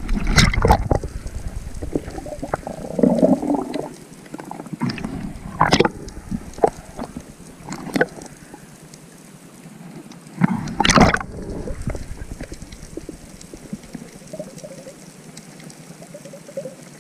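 Water splashing and bubbling around an action camera that is partly or fully underwater, heard muffled through its housing. There are several sharp splashes, about a second in and again near six, eight and eleven seconds.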